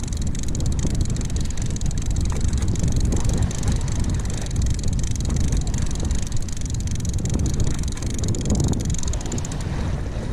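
Wind buffeting the microphone, with the steady high whir of a conventional fishing reel being cranked to bring up a hooked fish. The whir stops about nine seconds in as the fish reaches the surface.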